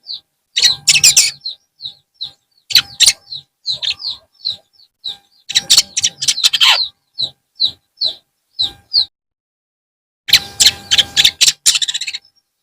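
Long-tailed shrike (cendet) singing: short bursts of rapid, jumbled chattering alternate with runs of single short, falling chirps at about two or three a second. After a pause of about a second, a last chattering burst comes near the end.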